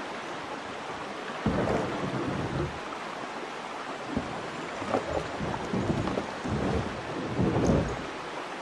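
Shallow river rapids rushing steadily over rocks, with gusts of wind buffeting the microphone as low rumbles several times.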